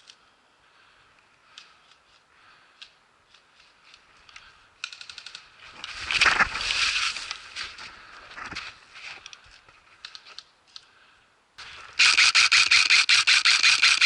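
Airsoft electric rifle firing on full auto: a short burst about five seconds in, then a long, loud burst of rapid, evenly spaced shots in the last two seconds. Faint clicks and a louder noisy stretch come in between.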